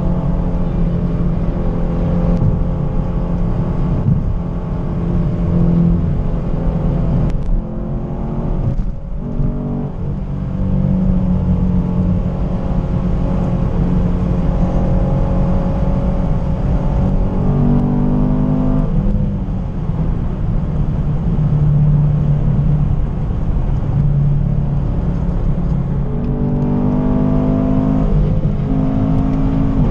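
A car engine running at highway speed with road rumble, heard from inside the cabin. Its note shifts in pitch now and then as the car speeds up and eases off.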